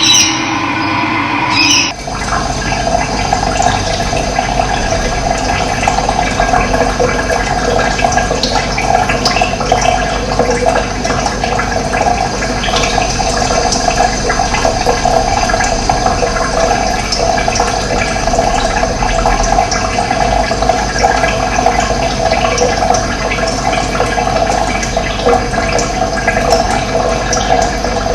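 Running water flowing steadily. It cuts in abruptly about two seconds in, replacing a different sound with steady tones.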